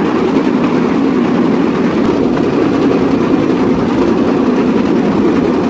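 Bamboo train (norry) travelling along the rails at speed: its small petrol engine running steadily under the noise of the wheels on the track. Loud and unbroken.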